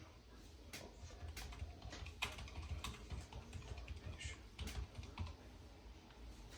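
Faint, irregular clicking of typing on a computer keyboard, with a low steady hum underneath.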